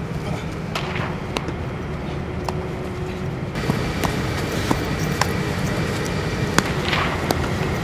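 Steady low rumble of a large indoor sports facility, with scattered sharp clicks and knocks from baseballs being hit, caught and thrown during infield practice. The rumble steps up a little about three and a half seconds in.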